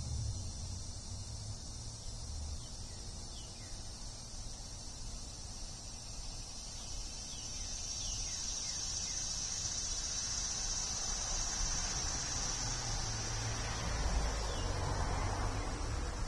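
Steady high-pitched trilling of insects, growing louder in the middle, over a low rumble.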